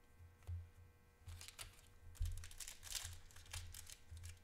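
Foil wrapper of a trading card pack crinkling and being torn open by hand, a run of crisp crackles starting about a second in, with low bumps of handling against the table.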